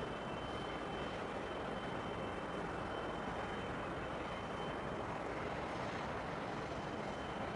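Steady distant engine rumble with no changes, over which a faint, constant high whine holds.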